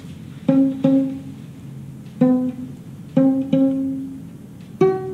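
Violin strings plucked pizzicato: six separate notes in an uneven rhythm, the first two close together and a higher note near the end, each ringing briefly and fading.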